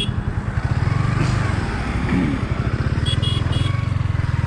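Yamaha sport bike's engine running as the bike pulls away and rides on, its low, even exhaust pulses growing louder about a second in. Three short high beeps sound a little after three seconds.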